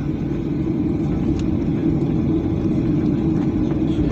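Steady engine and cabin rumble heard from inside a jet airliner's cabin as it taxis after landing, the engines at low power.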